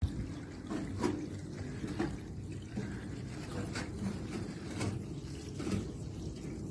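Water running steadily down a preformed garden waterfall cascade, with occasional sharper splashes.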